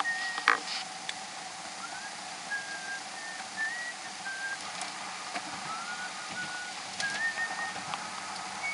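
A person whistling a tune, a string of short held notes stepping up and down in pitch, over the steady hum of a car's cabin on the road. A sharp click sounds about half a second in.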